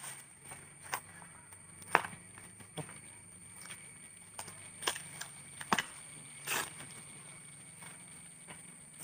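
Clear plastic packaging bags crinkling and crackling in the hands as a part wrapped in foam sheets is unwrapped, with a handful of sharp, irregular crackles, the loudest about two seconds in and near six seconds.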